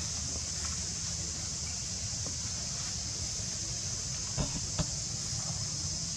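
Insects droning steadily at a high pitch, with two sharp clicks a little past the middle.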